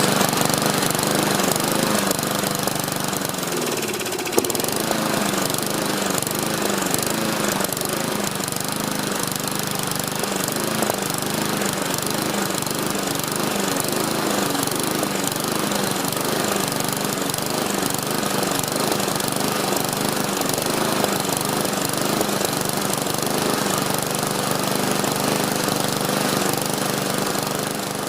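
Push lawn mower's small engine running. Its speed shifts in the first few seconds, then it runs steadily, with one sharp click about four seconds in.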